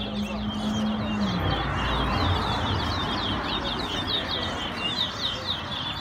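Caged towa towa (chestnut-bellied seed finch) singing a fast, unbroken string of short, high chirping notes: its competition song, counted song by song in a bird race. Under it, a low steady hum slides down and fades about a second and a half in.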